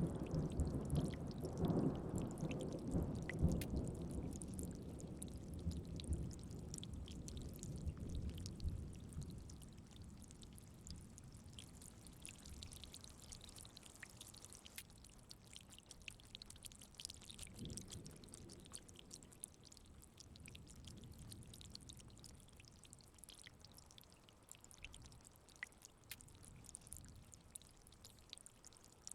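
Rain pattering steadily, with a roll of thunder dying away over the first several seconds and a fainter low rumble of distant thunder about eighteen seconds in.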